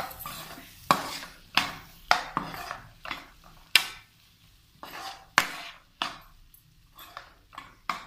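Steel spoon stirring diced potatoes in a non-stick frying pan, clinking and scraping against the pan in irregular strokes about once or twice a second, as chilli powder is mixed into the frying potatoes.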